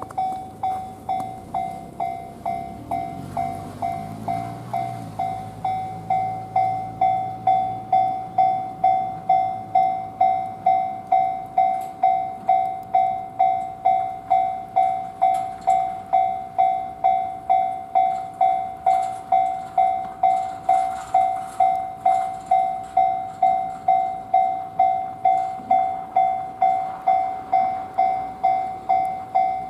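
Japanese level-crossing alarm ringing continuously: one high electronic bell tone repeated evenly about twice a second, growing louder about six seconds in. It keeps ringing with no train running, which the uploader suspects is a crossing fault.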